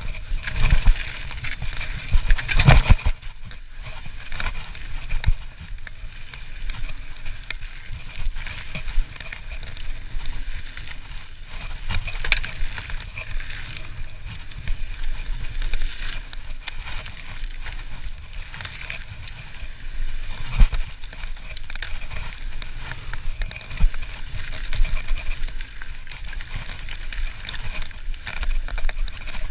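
Trek Slash full-suspension mountain bike riding fast down a dirt and gravel trail: tyres rumbling and crunching over the surface, with frequent knocks and rattles from the bike over bumps, the sharpest about three seconds in and again about twenty seconds in.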